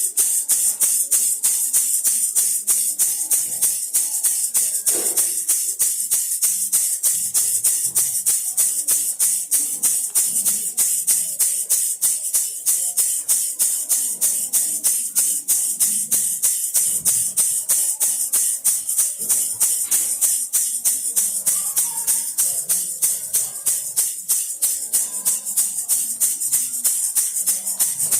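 A baby rattle shaken steadily in a fast, even rhythm, its beads rattling at about four shakes a second.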